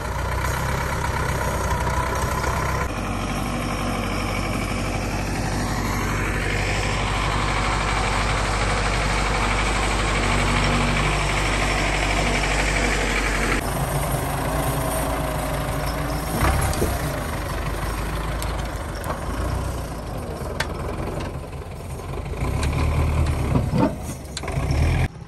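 Farm tractor's diesel engine running steadily under load. The sound changes abruptly about three seconds in and again about fourteen seconds in.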